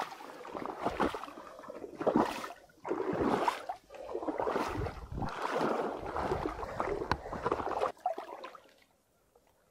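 Wind blowing across the camera microphone in uneven gusts, dying away near the end.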